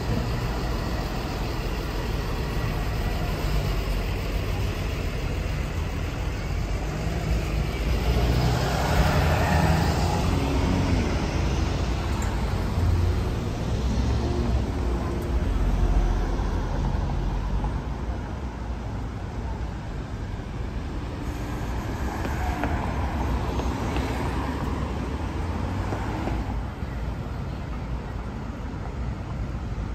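Street traffic: cars passing with a steady low rumble of engines and tyres, swelling as vehicles go by about a third of the way in and again later on.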